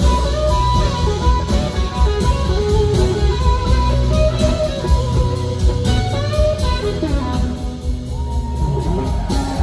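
Live rock band playing an instrumental passage: two electric guitars playing lead lines over bass and drums, loud and full. Near the end a long held guitar note bends in pitch.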